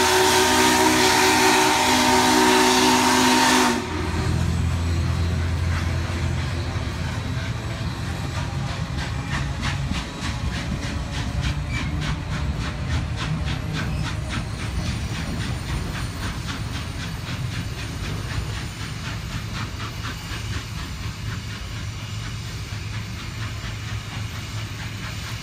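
Union Pacific steam locomotive's whistle blowing a loud multi-note chord for almost four seconds, then cutting off suddenly. After it, the passenger cars roll past with a low rumble and a steady run of wheel clicks over the rail joints, slowly fading as the train moves away.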